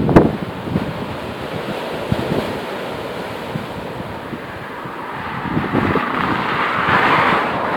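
Rough sea surf breaking and washing over a concrete tetrapod breakwater, a steady rushing with a louder surge of breaking water near the end. Wind thumps on the microphone, sharpest right at the start.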